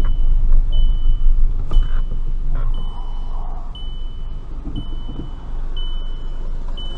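Low engine and road rumble inside a slow-moving Volkswagen car's cabin, with a short high electronic beep repeating evenly about once a second.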